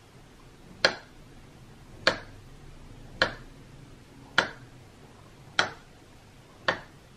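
A kitchen knife slicing through a halved avocado and knocking on a wooden cutting board: six sharp taps, evenly spaced about a second apart.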